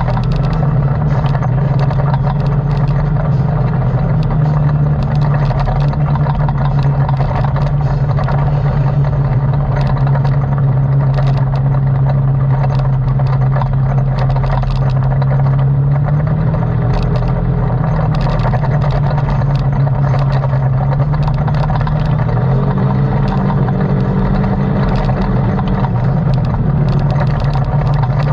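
ATV engine running steadily at a constant load, its pitch stepping slightly up and down twice, with many brief clicks and knocks over it.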